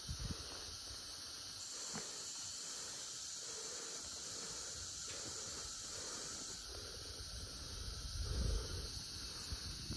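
Tropical forest ambience: a steady high insect hiss, which swells for several seconds from about a second and a half in. A low rumble comes near the end.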